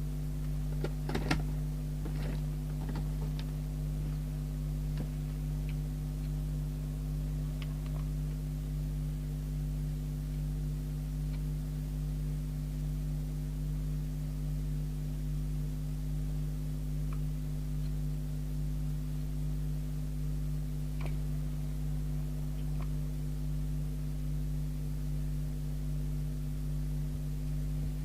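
Steady electrical hum with a cluster of small sharp clicks about a second in and a few faint ticks later: handling and tool clicks at a workbench while a CB radio's power output is adjusted.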